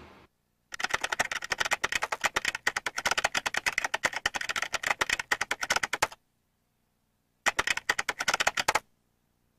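Rapid keyboard typing clicks for about five seconds, a pause of over a second, then a second short burst of typing near the end.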